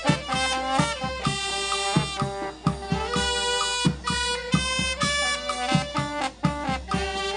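Funeral brass band playing a melody, led by saxophones with trumpet and sousaphone, over a steady bass drum and snare beat.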